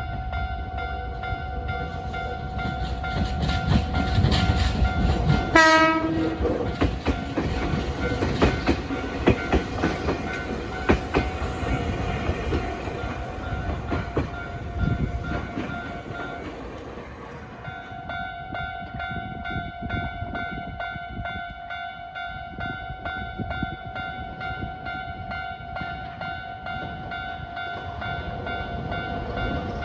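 Japanese level-crossing alarm bell ringing steadily while a Nankai electric train passes over the crossing, its wheels clattering rhythmically over the rail joints for about fifteen seconds. A short train horn blast sounds about five seconds in. The bell keeps ringing after the train has gone by.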